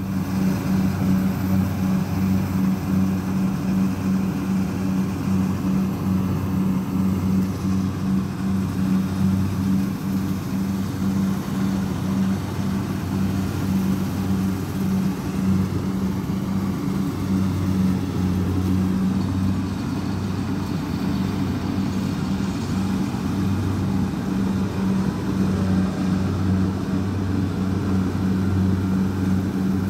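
Kubota DC-60 combine harvester's diesel engine running steadily under load as it cuts rice, a constant low drone.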